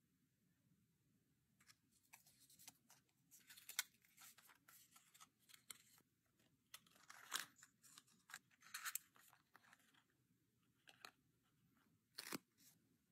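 Close-up handling of small plastic parts and thin card packaging: soft irregular crinkling, tearing and clicking as a tiny figure is fitted into a miniature plastic display box, with one sharper click near the end.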